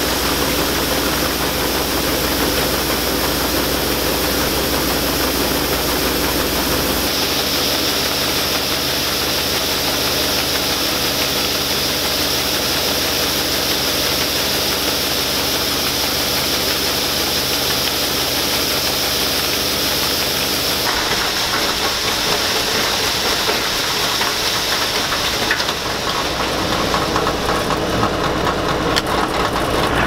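Allis-Chalmers Gleaner M2 combine running steadily while its unloading auger pours soybeans into a gravity wagon. The machine noise shifts in character about seven seconds in and again about twenty-one seconds in.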